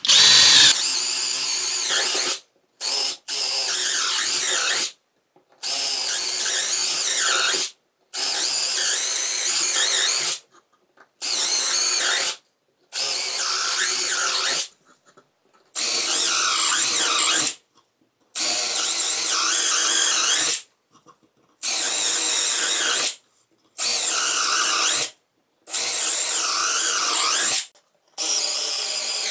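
Parkside Performance 12V brushless cordless drill drilling holes in wood one after another: about a dozen runs of around two seconds each, separated by brief silences.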